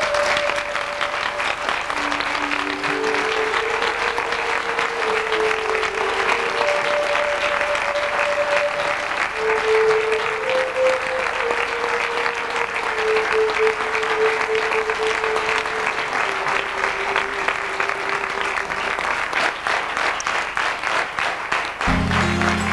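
Theatre audience applauding steadily, with a slow melody of long held notes playing beneath. Near the end the applause is cut off by different music with a low drone.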